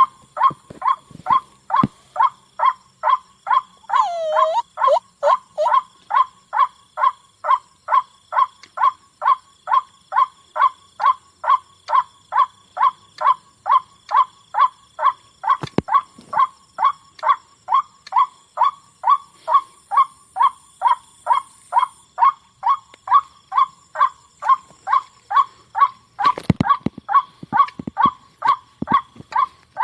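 White-breasted waterhen calling: one short note repeated monotonously about twice a second, played as a lure call. About four seconds in, a lower gliding call breaks in briefly, and there are a few short knocks later on.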